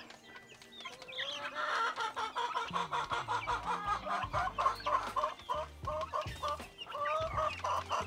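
Upgraded native chickens clucking over a trough feeder as they eat: a run of short, repeated clucks, about three a second, starting about a second in. Many quick clicks of beaks pecking at the feed.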